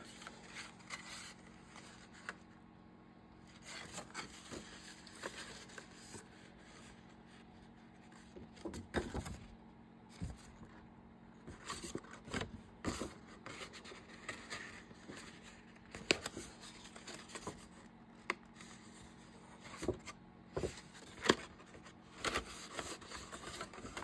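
Paper and card being handled on a craft table: scattered scrapes, rustles and light taps, over a faint steady hum.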